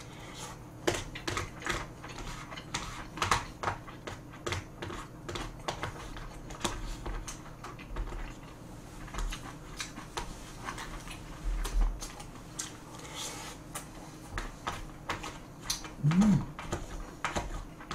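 Close-miked eating: frequent small, irregular clicks of a spoon and chopsticks against plastic takeout containers, mixed with chewing and lip smacks. A brief low 'mm' from the eater comes near the end.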